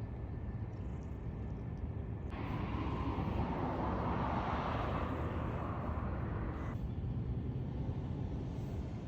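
Outdoor background noise: a steady low rumble, with a louder hiss that starts abruptly about two seconds in and cuts off about four seconds later.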